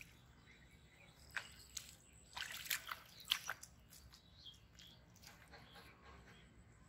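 Wet squelches and splats of soft mud and shallow water under hands and bare feet, a cluster of short sharp ones between about one and a half and three and a half seconds in.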